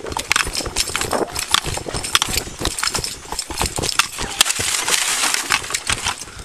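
Running footfalls pounding on dirt, with body-worn gear and the body camera rattling and knocking. About four seconds in come scraping and knocking against a wooden fence as the runner grabs and climbs it.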